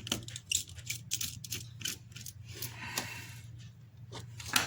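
Small clicks, taps and scrapes from hands and tools working on an opened iPhone 6s, with a brief scraping about three seconds in and a louder click near the end, over a low steady hum.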